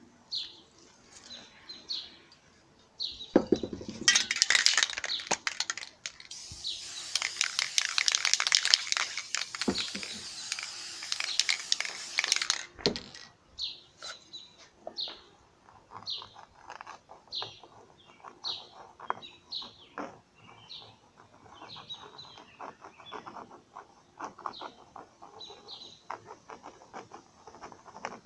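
A spray-paint can hissing in bursts from about three seconds in until about halfway through. Then comes a metal tool scratching into the painted panel in quick short strokes. A bird chirps over it all, about once a second.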